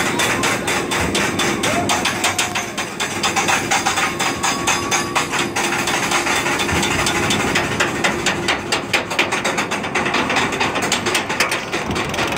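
Bolliger & Mabillard stand-up roller coaster train climbing its chain lift hill: the lift chain running and the anti-rollback ratchet clacking in a fast, even rhythm throughout.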